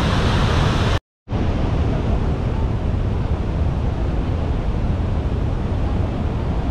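Steady roar of the American Falls and the rushing Niagara River, with wind rumbling on the microphone. It drops out for a moment about a second in, then goes on a little duller.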